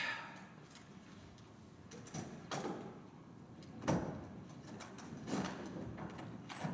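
Scattered knocks and clunks as a saxophone case is handled and packed on a stage floor, with the loudest clunk about four seconds in.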